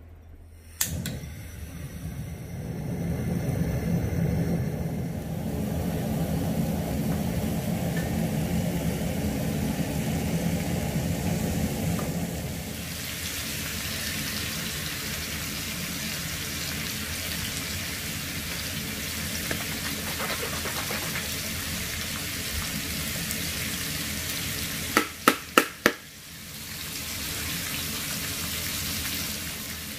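Pork belly sizzling on a hot camping griddle, a steady hiss through the second half. Before it there is a sharp click and about ten seconds of a lower, rougher rushing noise. Near the end the sizzle is broken by four quick sharp clicks.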